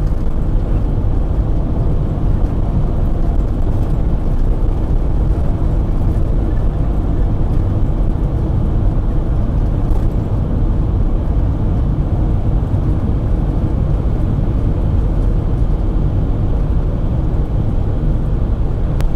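A car driving along a sealed highway: a steady low rumble of tyres and engine that runs evenly throughout.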